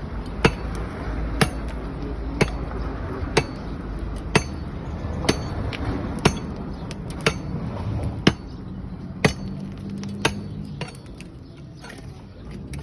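A hand tool, such as a hammer or chisel, is striking the pavement in a steady rhythm of about one blow a second. Each blow is sharp with a metallic ring. This is the breaking-out of the damaged asphalt to prepare it for patching. The blows stop about ten seconds in.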